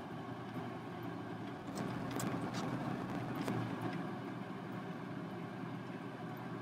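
Steady low background hum, a little louder between about two and four seconds in, with a few faint light clicks as a metal ball chain is gathered up in a gloved hand.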